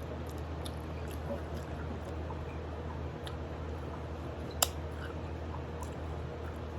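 Close-up chewing and sucking on chicken feet: small wet clicks and squishes, with one sharp click about two-thirds of the way through, over a steady low hum.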